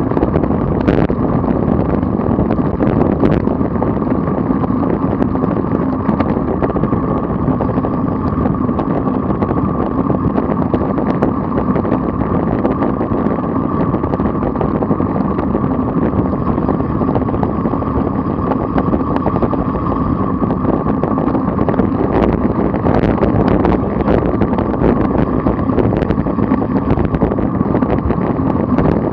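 Steady rushing wind and road noise on a bike-mounted camera as a road bike rides at about 30 mph in a group of cyclists, with a few faint clicks.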